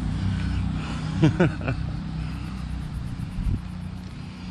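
A car driving by on the wet road, its engine hum and the hiss of tyres on water fading away as it moves off.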